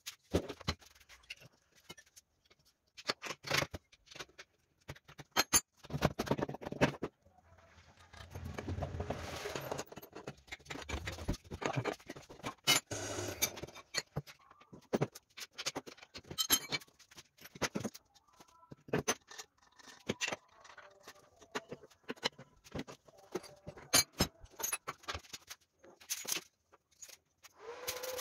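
Steel tubing and suspension parts being handled and fitted on a steel frame: a string of irregular metal clanks, taps and scrapes, with a longer stretch of rough scraping in the middle.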